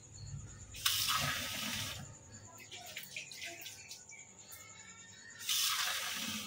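Kitchen sink tap running twice, each time for about a second, water splashing into a steel tumbler as it is rinsed, with faint handling sounds in between.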